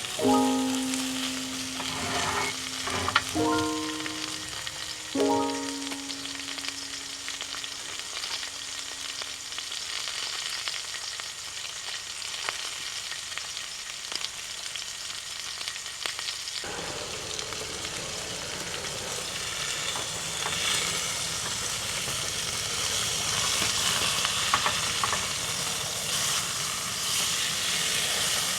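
Food frying and sizzling in a skillet, a steady crackling hiss that grows a little louder in the second half. A few ringing musical notes sound over it in the first few seconds.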